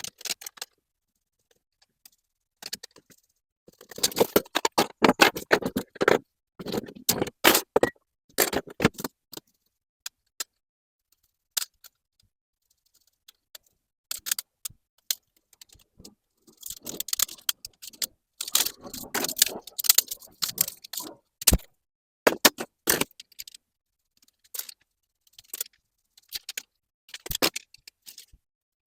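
Small computer being taken apart by hand: clicks, rattles and small metal parts jingling, in two busy stretches with short quiet gaps and scattered single clicks between.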